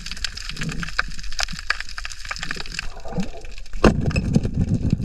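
Underwater sound of a night spearfishing shot: a steady crackle of sharp clicks, then a speargun firing with a sharp knock near the end, followed by about a second of low rumbling water movement as the spear strikes the yellowfin seabream.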